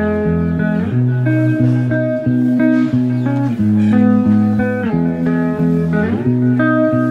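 Background music: a guitar playing plucked notes over a low bass line.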